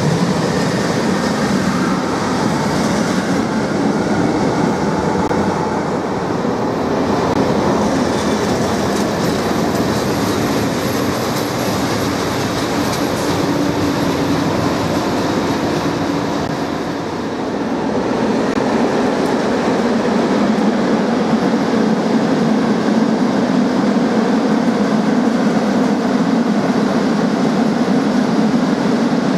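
A passenger train running past along the platform, then a locomotive-hauled freight train of open wagons passing on a far track. A steady rumble of wheels on rails, louder in the second half.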